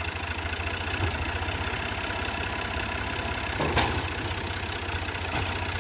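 Al-Ghazi tractor's diesel engine running steadily at idle, with an even low pulse. A brief louder noise breaks in about two-thirds of the way through.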